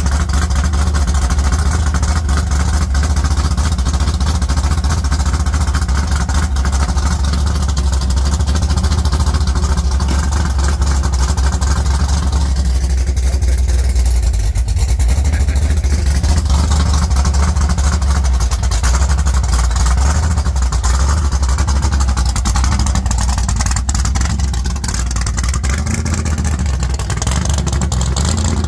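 Loud, steady idle of the 1940s Ford hot rod's engine, running without any rise or fall.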